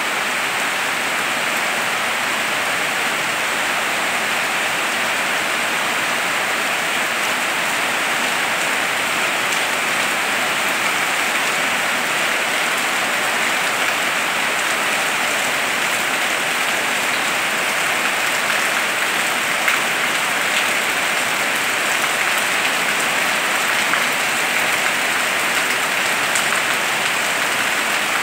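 Heavy rain falling steadily, a dense even hiss of rain on roofs and trees, with one brief louder tick about two-thirds of the way in.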